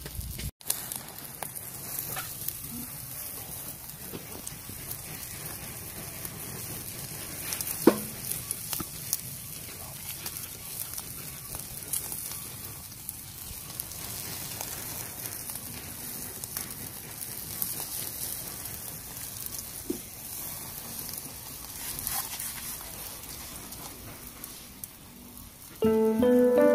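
Pork belly sizzling as it grills over glowing charcoal in clay stoves, a steady hiss with frequent crackles and sharp pops, the loudest about eight seconds in. Music comes in near the end.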